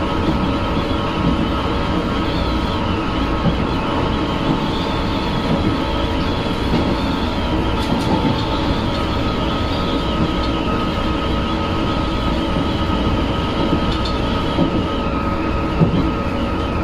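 São Paulo Metro Line 3-Red train 218, car G181, running, heard from the driver's cab. The traction motor and inverter whine holds a steady pitch over a rumble. The reduction gearbox adds a growl ('ronco'), which the uploader thinks is probably from a lack of lubrication.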